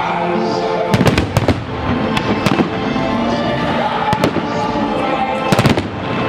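Aerial firework shells bursting over music. A rapid cluster of sharp bangs comes about a second in, scattered single reports follow, and another tight cluster of bangs comes near the end.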